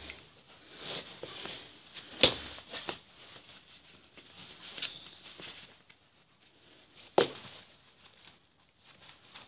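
Someone moving about close by: soft rustling with a few sharp knocks, the clearest about two and seven seconds in.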